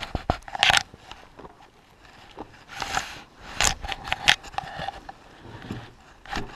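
Metal tool clinks and scrapes, a wrench being worked on the bolts of the water outlet housing of a 1952 Mercury flathead engine, in a few irregular strokes.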